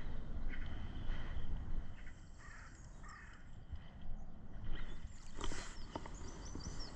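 Wind rumbling on the microphone, with a few sharp clicks about five and a half seconds in and faint, short high chirps near the end.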